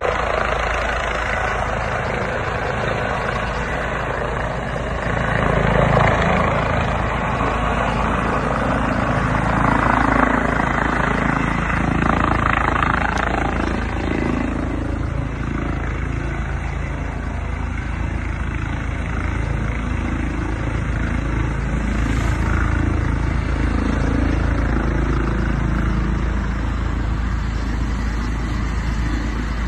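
Air-ambulance helicopter coming in to land, with a steady, loud rotor and engine noise. It swells about five seconds in and again around ten to thirteen seconds as it comes down to the ground.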